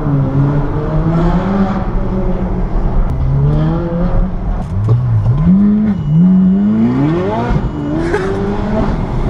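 Ferrari 458 Speciale's naturally aspirated V8 accelerating ahead, heard from inside a following car: the engine note climbs in several runs and dips between them, with the longest climb about two thirds of the way through.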